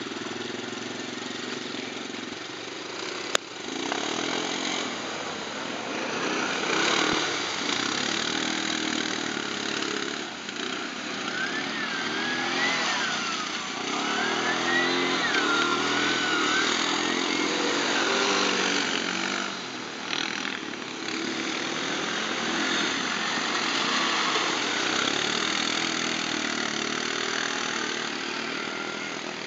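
ATV (quad bike) engines running, the pitch rising and falling as they rev. A sharp click about three seconds in.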